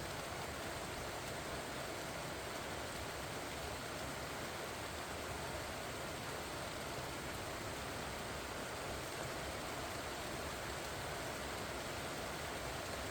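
Steady rain falling on pumpkin vines and leaves: an even, unbroken hiss with no single drops standing out.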